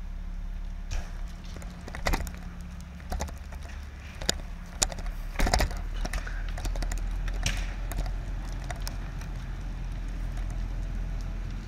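Fully engulfed pickup truck fire popping and cracking sharply several times over a steady low rumble.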